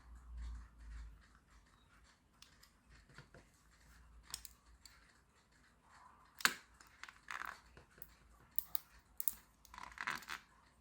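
Small clicks, snips and scratching of hand tools working at a thin plastic anti-theft security label, with the sharpest click about six and a half seconds in and a flurry of scraping near the end.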